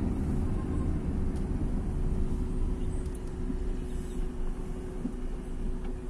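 Steady low rumble of a car's engine and tyres on the road, heard from inside the moving car, with a faint steady hum.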